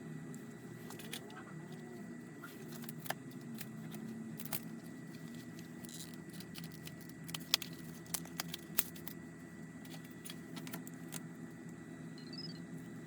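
Scattered small sharp clicks and taps of tools and parts during hands-on smartphone repair, over a faint low steady background.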